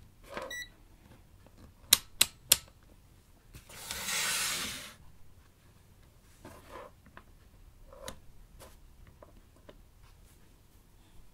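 Sharp clicks of multimeter rotary selector switches being turned, with a short electronic beep near the start. About four seconds in, a battery pack scrapes across the cardboard bench for about a second. Light taps follow as the test probes are handled.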